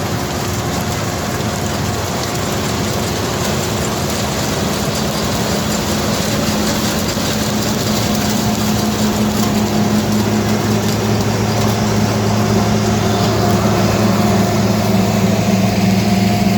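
Combine harvester running steadily in a sunflower field, its engine a constant low hum under a noisy whir, growing slightly louder toward the end.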